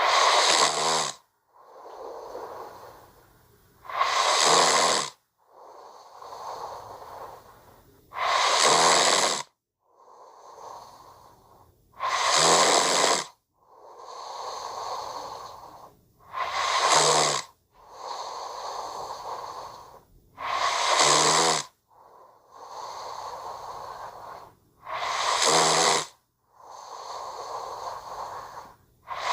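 Anime-style sleeping snore: a loud snore alternates with a softer, longer breath, repeating evenly about every four seconds.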